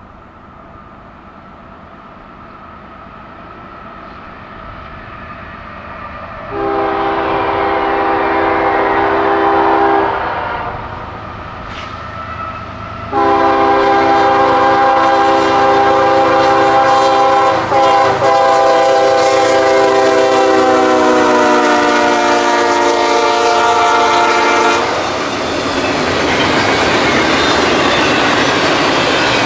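A CSX freight locomotive approaches, its rumble growing. Its multi-note air horn gives a blast of about three seconds, then a long blast of about twelve seconds whose pitch drops as the locomotive passes close by. After that the double-stack container cars clatter past steadily.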